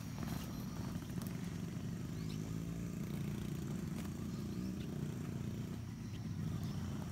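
A vehicle engine running steadily, a low humming drone with little change in speed.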